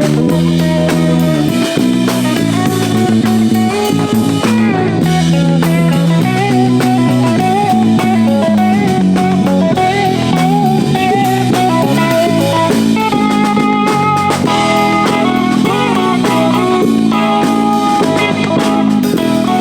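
Rock band playing loud, continuous music: guitar over a drum kit.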